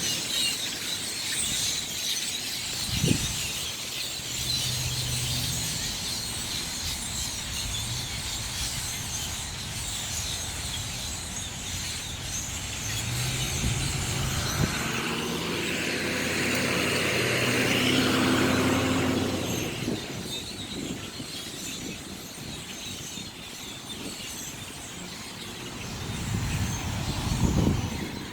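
Road vehicles running outdoors, one passing close and growing loudest about two-thirds of the way through before fading, with a sharp click a few seconds in.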